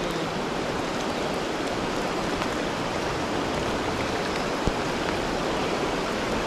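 Steady rushing of a flowing creek mixed with falling rain, even and unbroken, with one small tick about four and a half seconds in.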